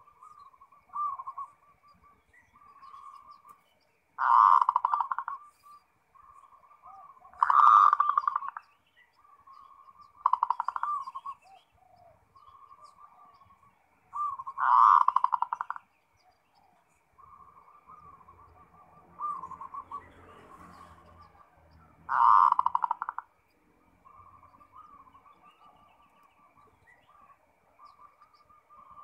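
Zebra doves (perkutut) cooing: five loud rolling, rapidly pulsed coos, each about a second and a half long, with softer cooing continuing between them.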